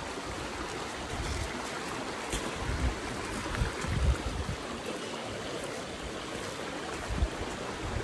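Mountain creek running over rocks, a steady rushing of water, with a few short low thumps.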